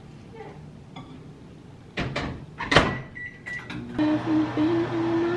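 Microwave oven door shut with a clack, a couple of short keypad beeps, then the microwave starts up about four seconds in and runs with a steady hum.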